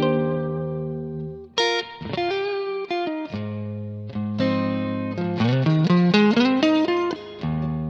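Clean electric guitar: a Fender Stratocaster through a Kemper profile of a Fender Frontman Reverb's clean channel, fitted with the cab from a '57 Bandmaster profile. It plays ringing chords, then a run of single notes that slide up in pitch about five to six seconds in, and a fresh chord near the end.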